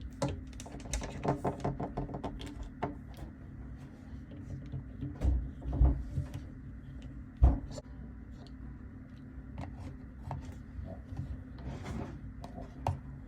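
A small plastic doll and its stand being handled: a quick run of light clicks and taps, then a few louder dull knocks about five to seven and a half seconds in.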